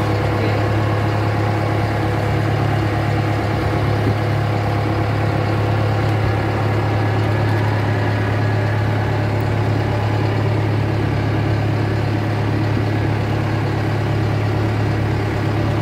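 Venetian water taxi's engine running steadily under way, a constant low drone with no change in pitch.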